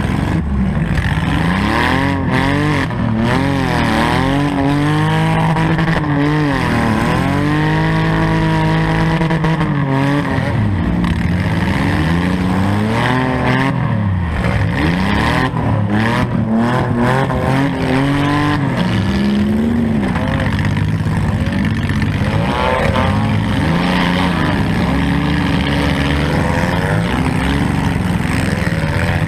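Four-cylinder demolition derby car engine revving up and falling back again and again as the car accelerates and lets off, its pitch rising and dropping every few seconds.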